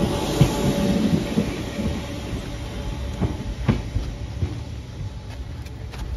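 Merseyrail Class 508 electric multiple unit pulling away, its wheels knocking a few times over rail joints. The rumble fades as the train draws off down the line.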